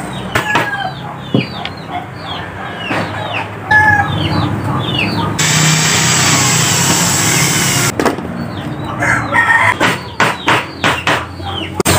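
Claw hammer tapping nails into a wooden picture frame, then an electric drill running for about two and a half seconds in the middle as it bores into the frame, followed by more quick hammer taps. Chickens cluck in the background.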